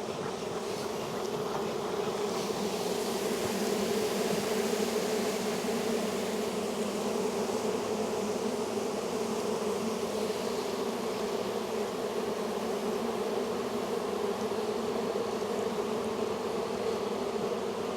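A large colony of honey bees buzzing in a steady, dense hum around an opened hive.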